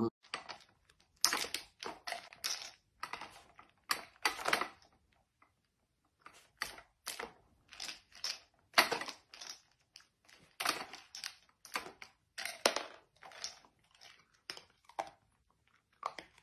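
Irregular plastic clacks, rattles and crunches as a dachshund noses a plastic treat-dispensing puzzle toy, spinning its cylinder and eating the treats it drops.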